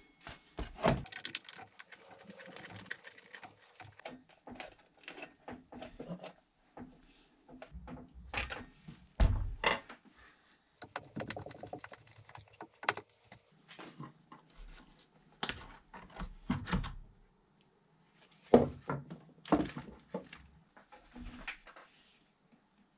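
Parts of a brushcutter being handled and fitted on a wooden workbench. The plastic blade guard and metal shaft knock and click irregularly against each other and the bench, with a few sharper knocks and some rustling of plastic parts bags.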